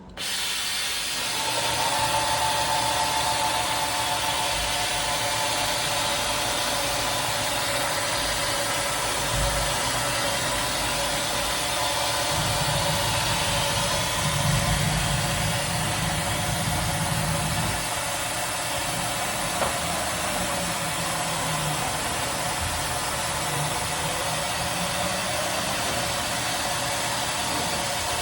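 Fadal VMC4020 CNC vertical machining center running: a steady whirring hiss with a whine of several steady tones, and a heavier low rumble for a few seconds about midway.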